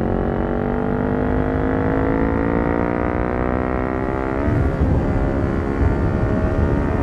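Kawasaki Ninja 400's parallel-twin engine running through a Yoshimura exhaust under way, its note climbing slowly as the bike accelerates. About four and a half seconds in the pitch drops sharply, and a rougher, lower exhaust rumble follows.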